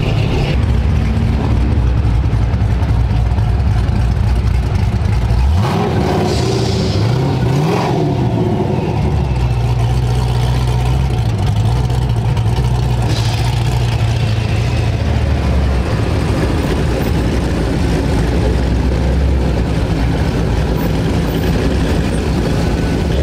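Engines of classic cars and trucks running as they drive past at low speed, a steady low drone. About six seconds in, one engine revs up and back down.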